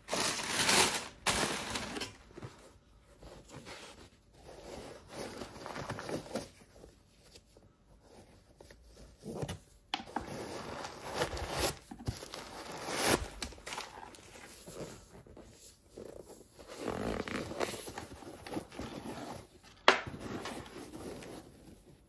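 Shoebox being unboxed by hand: packaging paper rustling and crinkling and cardboard scraping in irregular bursts, with a sharp click near the end.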